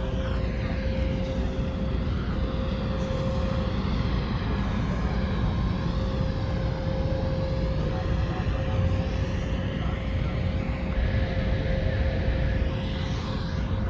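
Steady rumbling background noise with a constant mid-pitched hum running through it, like machinery or ventilation.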